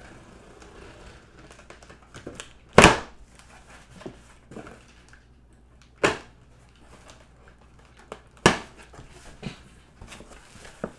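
Cardboard box being opened: a box cutter scratches through the packing tape, then the taped flaps are pulled open with three sharp, loud tearing sounds about three, six and eight and a half seconds in, and some lighter rustling of cardboard between them.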